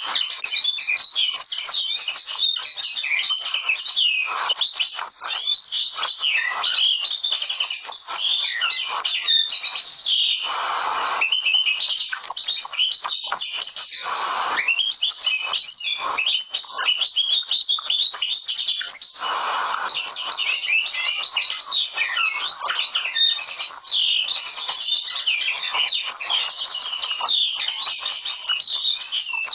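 Male common linnet singing: a long, unbroken run of fast, varied twittering and trilled phrases, high-pitched.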